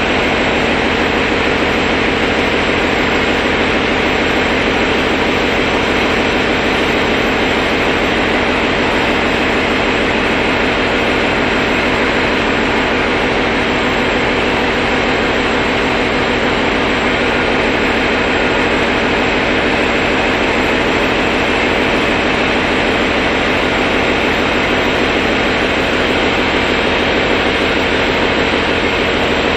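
Diesel engine of a RENFE Series 597 TER train running steadily: a loud, even drone that does not change, with the unit standing ready for workshop tests.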